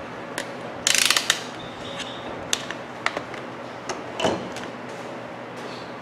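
Hand handling of a plastic multimeter and small tools: a quick run of rattling clicks about a second in, then scattered single clicks and a knock, over a low steady room hum.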